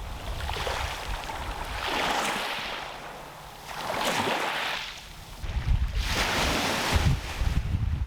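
Small waves washing onto the shore, three swells that rise and fall about two seconds apart, with wind buffeting the microphone.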